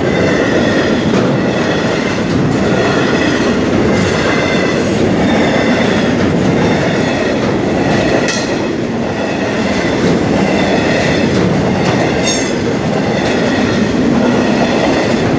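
Freight train wagons rolling past at close range with a steady, loud rumble and the clickety-clack of wheels over the rail joints. Two brief high-pitched squeals cut through, one about eight seconds in and another about twelve.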